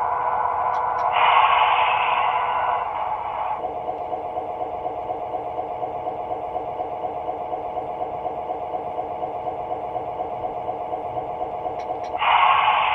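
Sound-decoder recording of a Baldwin diesel engine played through the model locomotive's small speaker, cut off above the midrange. The engine runs with a steady, fast, even pulse. About a second in, a louder, brighter sound lasts about two seconds, and it comes back near the end.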